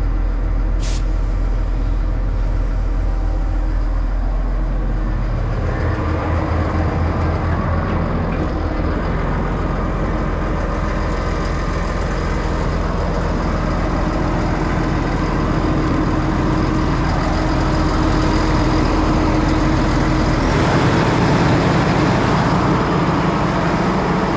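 Tractor diesel engine running steadily, its speed stepping up about six seconds in and rising again, a little louder, near the end. A single sharp click about a second in.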